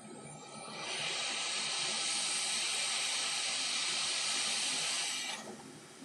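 Hot air rework station blowing a steady hiss of air while soldering a replacement monolithic power-stage driver chip onto a laptop motherboard. The hiss swells in about a second in and drops away near the end.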